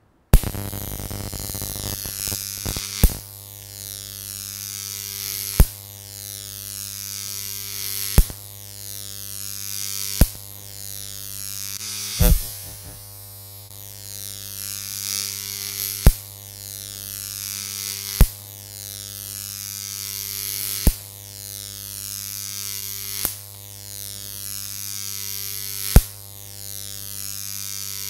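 Jacob's ladder arc between copper-pipe electrodes, powered by a 15,000-volt 30 mA neon sign transformer, buzzing steadily. A sharp snap comes every two to three seconds as the arc climbs the rods, breaks at the top and re-strikes at the base.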